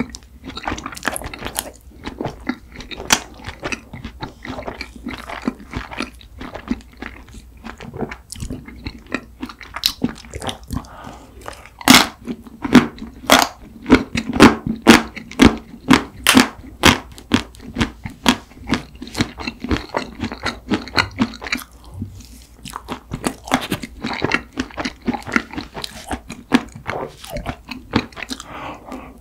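A person eating mint chocolate chip ice cream cake close to the microphone: mouth and chewing sounds with many sharp clicks, busiest and loudest around the middle.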